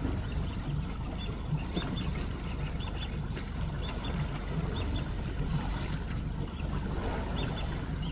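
Steady low hum of an idling boat motor, with short high bird chirps recurring every second or so over it.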